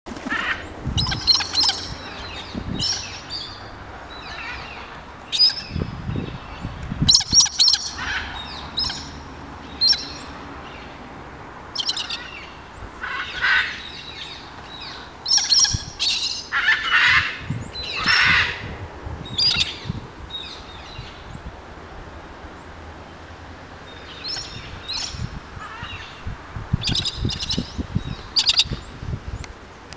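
Galah cockatoos calling over and over in flight: many short, high chirping calls, with a run of lower, longer calls in the middle. Low rumbles of wind on the microphone come and go.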